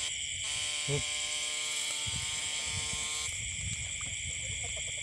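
Steady electrical buzz of a battery-powered electrofishing eel shocker, cutting off about three seconds in, over a constant high-pitched drone. After the buzz stops, a frog starts a rapid pulsed call.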